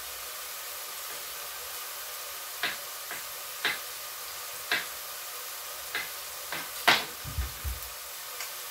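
Sofrito of onion, garlic and parsley sizzling steadily in a frying pan. Over it come sharp kitchen knocks and clicks, roughly one a second from a few seconds in. The loudest is near seven seconds in, followed by a short low thud.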